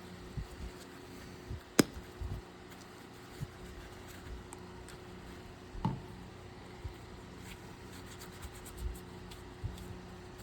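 Scattered light knocks and taps from objects being handled, with one sharp click about two seconds in and a duller knock near the middle, over a faint steady hum.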